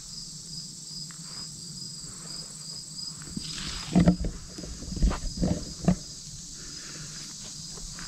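Forest insects chirping steadily in an even pulse of about four chirps a second. A handful of footsteps on the trail about four to six seconds in are the loudest sounds.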